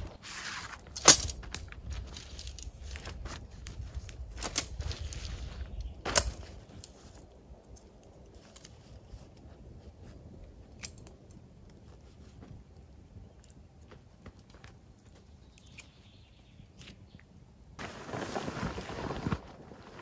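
Nylon tent fabric rustling and crinkling as a small dome tent is unfolded and pitched, with two sharp clicks, about a second in and about six seconds in. A quieter stretch follows with scattered faint ticks, then a burst of fabric rustling near the end.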